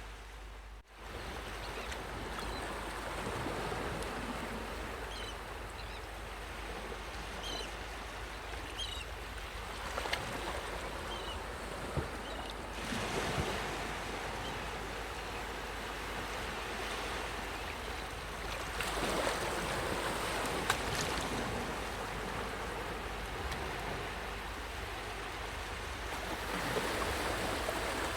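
Sea waves washing onto a beach: a continuous hiss of surf with several louder surges of breaking water a few seconds apart, and a brief drop-out about a second in.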